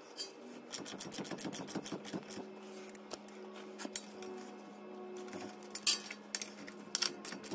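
Socket ratchet clicking in quick runs as the nut on a front strut-to-knuckle bolt is run down snug, with a wrench holding the bolt head; scattered metal clinks of the tools against the bolt near the end.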